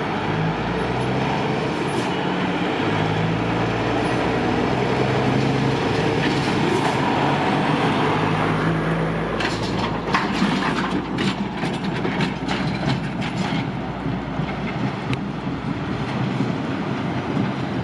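Heavy rescue truck's diesel engine running as it pulls a low-loader trailer carrying a vehicle. From about halfway through there is a run of rattling clanks.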